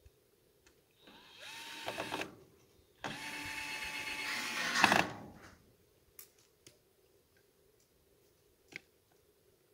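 Cordless drill run twice, first for about a second, then for about two seconds, its motor whine climbing and holding steady; a few light clicks and knocks follow.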